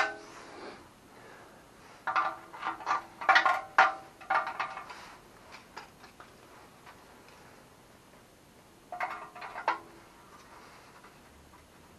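Hand tools scraping and squeaking against the rusted steel muffler of a Yamaha Grizzly 660 exhaust and its seized screws. The sound comes in two spells of short strokes: a longer one a couple of seconds in, and a shorter one about three quarters of the way through.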